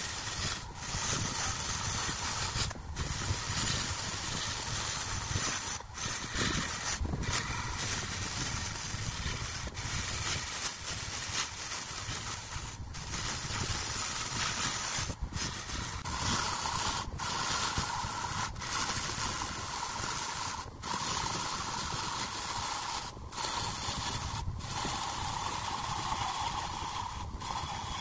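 Wood lathe running with a turning tool cutting the spinning wood: a steady hiss over a low rumble, broken by short drops every second or two. A higher-pitched whine joins about halfway through.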